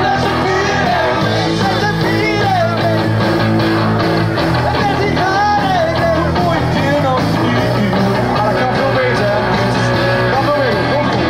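Live rock band playing: electric guitars, drums and keyboard, with a voice singing over them.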